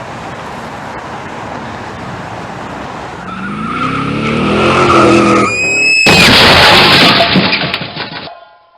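Car crash sound effect: a car's engine note rises as it speeds in, its tyres squeal briefly, and then comes a loud crash about six seconds in, with clattering that lasts about two seconds and dies away.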